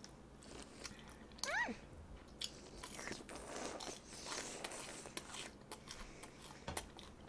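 Close-up eating sounds of a fried cheese stick: bites with soft crunches of the breaded crust, chewing and small mouth clicks. A brief vocal sound comes about a second and a half in.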